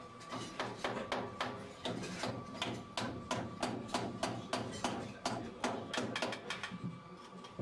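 A rapid, irregular run of sharp knocks, several a second, stopping shortly before the end.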